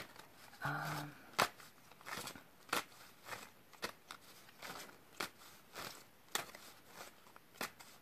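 A deck of tarot cards being shuffled by hand: quiet, irregular clicks and snaps of the cards, about one or two a second.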